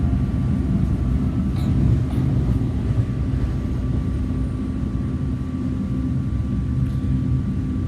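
PATCO Speedline rapid-transit train running at speed, heard from inside the car as a steady low rumble with a faint hum.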